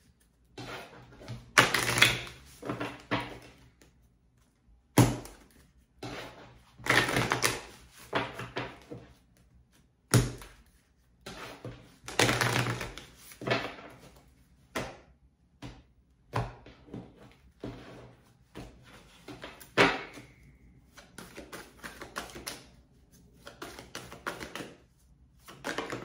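A deck of sacred geometry oracle cards being shuffled by hand, in repeated bursts of quick card rustling and flicking. Sharp single slaps stand out now and then, the loudest about 5, 10 and 20 seconds in.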